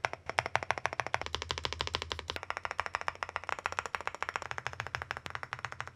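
Stabilized keys of a NuPhy Halo96 V2 mechanical keyboard pressed rapidly over and over in a stabilizer test: a fast, even run of sharp clacks, many a second. The stabilizers sound crisp and well tuned rather than muffled.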